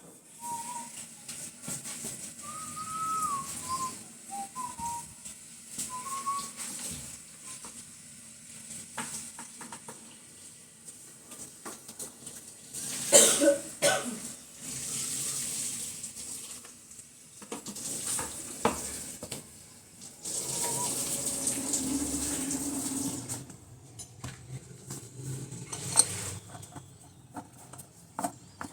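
Hard parts clattering, knocking and clicking as they are handled, with a loud clatter about halfway through and another sharp knock near the end. A few short whistled tones in the first seconds.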